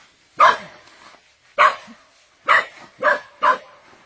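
A dog barking: five short, sharp barks at uneven intervals.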